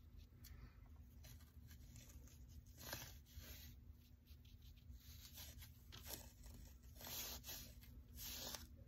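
Faint scratchy swishes of a watercolour paintbrush on sketchbook paper: a few short strokes, the longest and loudest near the end, over a low steady hum.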